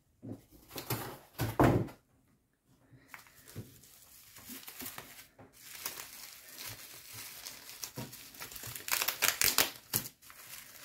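Plastic bubble wrap around a parcel rustling and crinkling as hands handle and open it, with a denser run of crinkles near the end.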